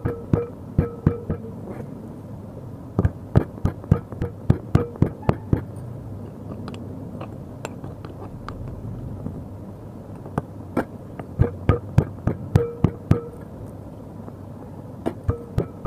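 Stone pestle pounding green chillies, garlic and coconut in a stone mortar: sharp knocks about four a second, in runs of a few seconds with short pauses between.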